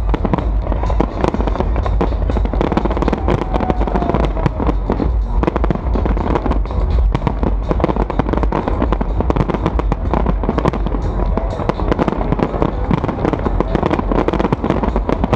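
Barrage of aerial firework shells bursting: rapid, overlapping bangs with no let-up. Music plays underneath.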